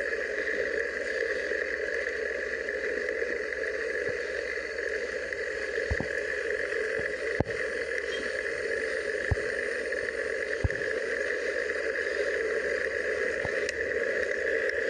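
Steady wind rush over a handlebar-mounted microphone with tyre noise from a 22-inch-wheeled drop-bar bicycle riding on asphalt. Several sharp knocks come through around the middle.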